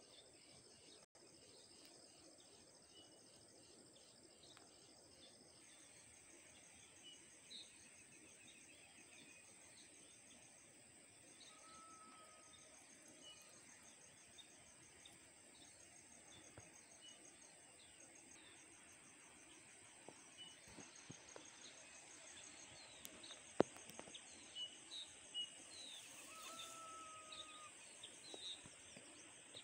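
Faint outdoor ambience: a steady, rapidly pulsing high insect trill with scattered bird chirps, which come more often in the second half, and a few sharp clicks.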